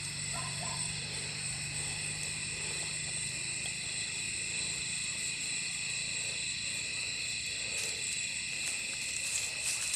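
Steady insect chorus: several high, even tones held without a break. A faint low hum runs under it for about the first three seconds.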